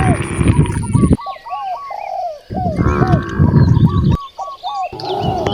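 Cattle mooing in long, loud calls: one trailing off about a second in, another from about two and a half to four seconds, a third starting near the end. The uploader takes the calls for hungry cows. Behind them a bird calls repeatedly in short quick notes.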